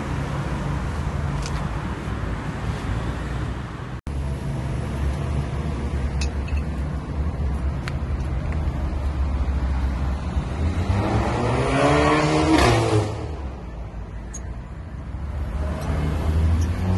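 Car engine running steadily, revved up for about two seconds near the middle with a rising pitch, then dropping back.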